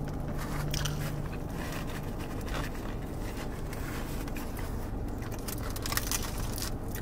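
Close chewing and irregular crunching of burritos with tortilla chips stuffed inside, with crinkling of the foil wrappers.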